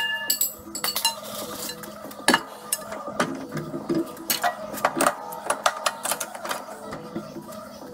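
Chrome 22-inch Escalade wheel clanking and clicking as it is set on a tire-changing machine's turntable and the center cone and locking shaft are fitted through the hub. Some knocks ring briefly, over a steady low hum.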